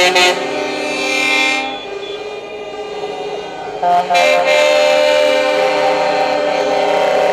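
Truck air horns sounding a multi-note chord: a held blast that fades out in the first second and a half, then after a lull a few short blasts about four seconds in, followed by a long held chord.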